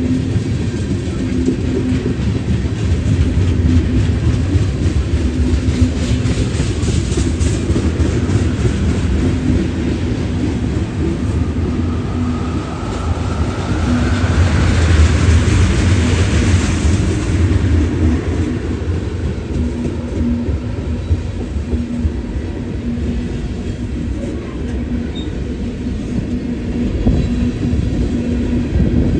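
Train rolling past on the rails, a steady rumble of wheels clacking over the track, with a wheel squeal rising near the middle.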